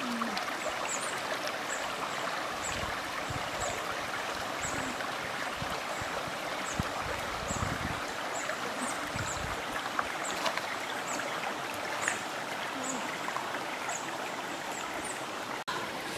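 Shallow rocky stream running: a steady rush and trickle of water, with faint short high ticks about once a second.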